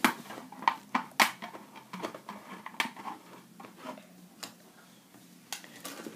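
Plastic pieces of a 3D jigsaw puzzle ball clicking and tapping as the ball is turned and a loose piece is handled: a few sharp, irregular clicks, the loudest about a second in.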